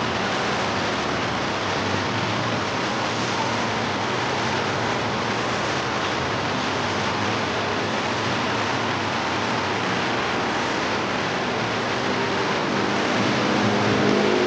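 Steady city noise, a wash of distant traffic. Near the end, a motor vehicle's engine grows louder.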